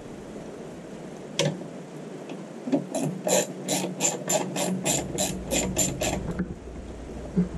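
Ratchet spanner clicking as it undoes a nut holding the mower's rear roller: a single click, then a run of about four clicks a second for several seconds.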